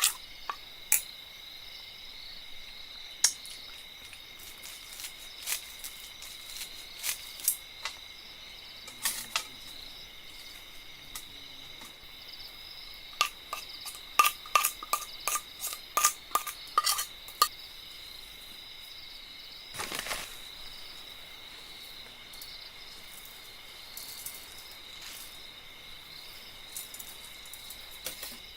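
A steady high chirring of insects, with scattered sharp clicks and taps over it. About halfway through comes a quick run of ringing, metallic clinks, like cookware or utensils being handled.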